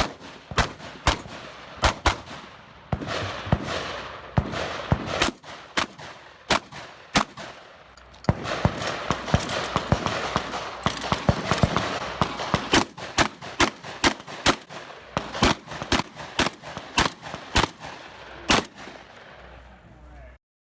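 A long string of single gunshots fired one after another at about one to two a second, with a noisy wash between them. The shooting stops shortly before the end.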